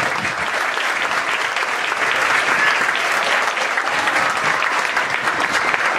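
Audience applauding steadily, a dense, even clatter of many hands clapping.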